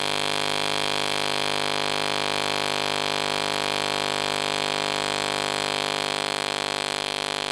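AC TIG welding arc buzzing steadily at 180 A from an EWM Tetrix XQ 230 puls AC/DC welder. The arc is held in one spot on aluminium with a balled green (pure tungsten) 2.4 mm electrode.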